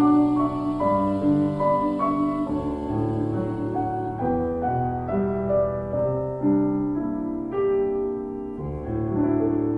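Background music: a piano playing slow, sustained chords that change about once a second.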